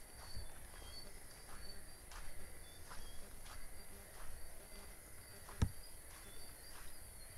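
Crickets chirping: short, high chirps at two pitches, repeating. Faint footsteps rustle through grass and brush, with one sharper click about five and a half seconds in.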